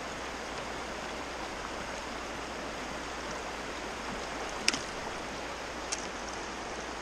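Steady rush of the Neversink River's flowing water, with two short sharp ticks about a second apart near the end.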